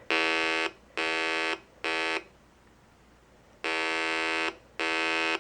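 Three cascaded 555 timer circuits driving a small speaker: a buzzy square-wave tone beeping in groups of three, Morse-code-like. Three beeps of about half a second each, a pause of about a second and a half, then two more beeps.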